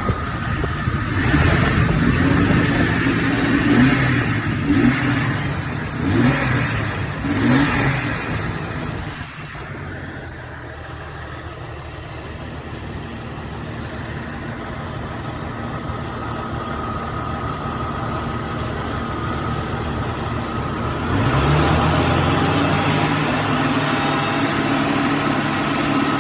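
2000 Jeep Cherokee engine revved several times over the first nine seconds, then dropping back to idle. About twenty-one seconds in, the engine speed rises and holds steady at a higher level. The engine is being run to work air bubbles out of the coolant system.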